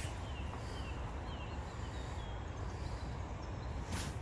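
Outdoor riverside ambience: a steady rush of river water with wind rumbling on the microphone, and a small bird giving several short, falling chirps in the first second or so. A brief burst of noise near the end.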